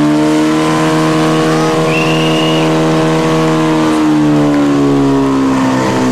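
Fire-sport portable pump engine running flat out as it feeds water to the two attack hoses, a steady high engine note that sags slightly in pitch toward the end.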